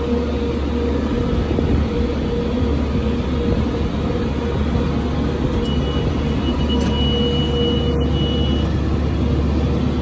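New Holland T5060 tractor running steadily from inside the cab while pulling a round baler. About six seconds in, a high steady beep sounds for about three seconds: the baler monitor's full-bale alarm at 60 inches.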